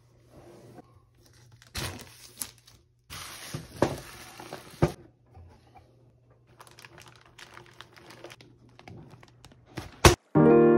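Plastic bag of jigsaw puzzle pieces crinkling and rustling in several irregular bursts as it is handled and lifted out of the cardboard box, with a sharp click just before the end. Piano music starts near the end.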